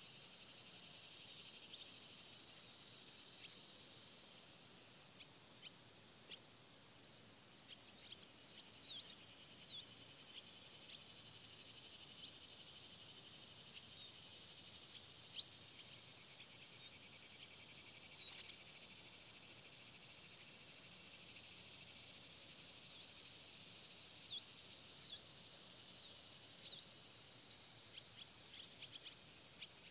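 Faint, steady high-pitched insect trilling in a grassy field, with a thin continuous tone that drops out and comes back several times. Scattered short high chirps are heard over it.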